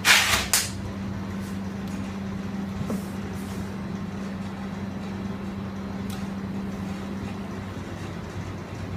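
A steady low electrical-sounding hum, with a short loud rush of noise in two quick pulses right at the start.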